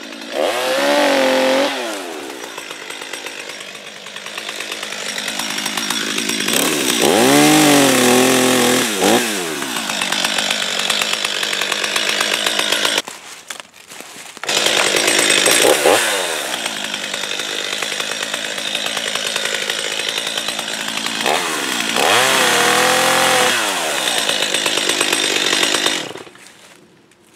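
Stihl MS 250 two-stroke chainsaw cutting small eastern red cedar trees, its engine revving up and down several times under the cut. It drops out briefly a little past halfway and stops near the end.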